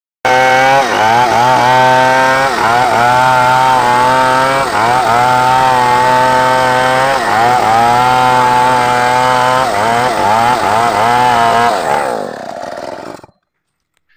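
Stihl MS 381 two-stroke chainsaw cutting into a timber beam at high revs, its pitch dipping again and again as the chain bites into the wood. Near the end the engine winds down and stops.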